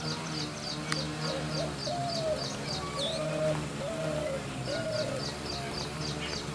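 Spotted dove cooing: a series of about four or five short, level coos spaced under a second apart through the middle. Behind it run a steady low drone and a fast, even, high-pitched chirping of about four chirps a second.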